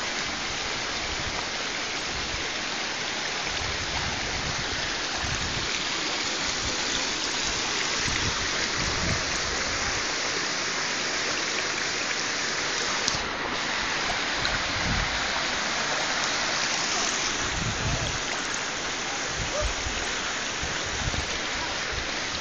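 Steady rush of a shallow stream flowing over rocks, with occasional low rumbles.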